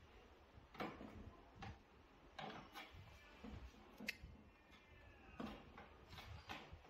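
Scattered light knocks and clicks, about one every second at irregular intervals, as the finned evaporator coil of a split air conditioner's indoor unit is handled and lowered onto its plastic chassis.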